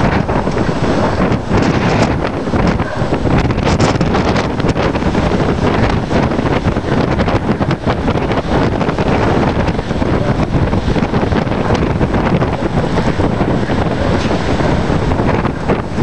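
Strong wind buffeting the camera's microphone, a steady loud rumble throughout.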